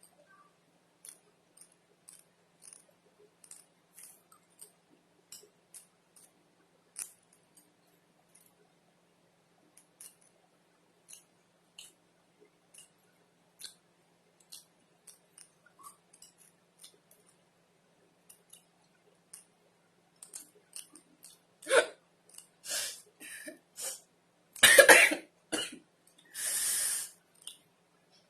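Faint scattered clicks for most of it, then a woman coughing several times near the end, one cough much louder than the rest, followed by a longer rasping breath, with spicy noodles irritating her throat.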